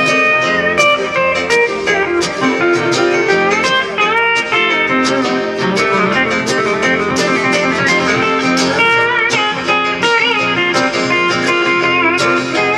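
Country band instrumental break, with a pedal steel guitar taking the lead in sliding, gliding notes over guitar, keyboard and rhythm backing.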